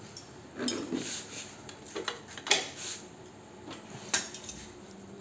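A handful of irregular metal clinks and knocks from spanners and bolts being worked on the ATV's engine bed, the sharpest one a little past four seconds in.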